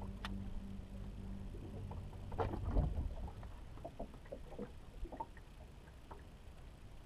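Low steady hum of a fishing boat's motor that stops about a second and a half in, then a brief louder knock-and-rustle of noise, followed by scattered small clicks and taps in the boat.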